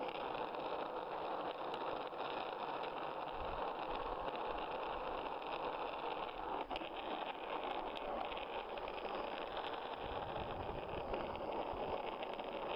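Skateboard wheels rolling fast on asphalt: a steady rolling noise with a few faint clicks from the road surface.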